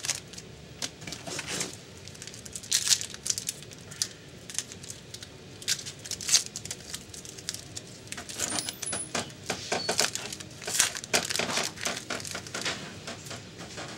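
Trading cards being handled and flipped through: a run of short, sharp card-stock clicks and slides, with some crinkling.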